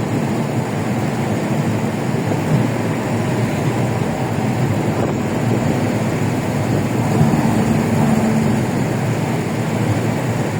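Steady road and wind noise of a vehicle driving at speed, with a faint engine hum coming up briefly about seven seconds in.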